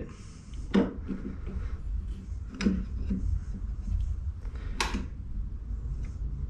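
Three light clicks or knocks, about two seconds apart, as a pulley is nudged by hand into position on a drill-press table, over a low steady hum.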